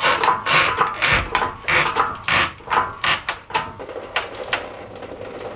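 Hydraulic workshop engine hoist being pumped by hand to lift a car engine on its chains: a run of short mechanical strokes, two or three a second, stopping about four seconds in.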